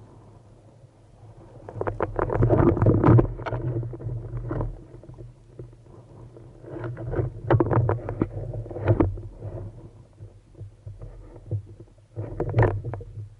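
Water churning and bubbling around a camera in or under the water, in three bursts over a steady low rumble.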